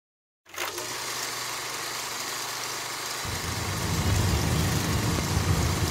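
Road and engine noise inside a moving car's cabin: a steady hiss with a low hum that starts a moment in, joined by a louder low rumble about three seconds in.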